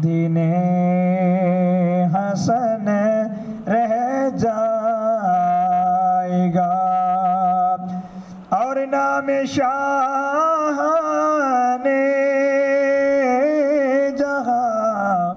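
A man singing an Urdu naat unaccompanied into a microphone, drawing out long wavering melismatic notes, with a short break about eight seconds in. A low steady drone holds beneath the voice.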